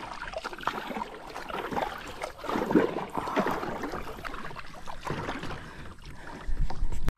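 Kayak on a river being paddled: water splashing and trickling off the paddle and around the hull in a dense, irregular patter, a little louder about three seconds in.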